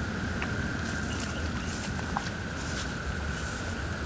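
Outdoor night ambience: a steady chorus of insects, heard as two constant high-pitched tones, over a low rumble.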